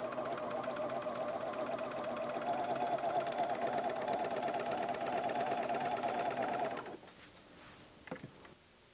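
Pfaff Hobbylock serger running at a steady speed, stitching a seam with the tape guide foot, then stopping abruptly about seven seconds in. A faint click or two follows near the end.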